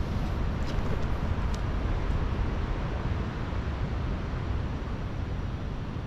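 Wind buffeting the microphone outdoors, a steady low rumble with hiss.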